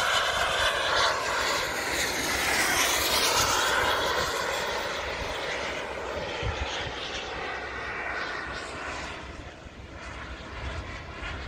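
Radio-controlled model jet flying past, its jet engine whine and rush swelling to a peak a few seconds in, shifting in pitch as it passes, then fading away.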